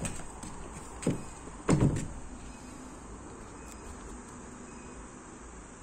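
Three dull knocks, the heaviest about two seconds in, then a steady low background hum.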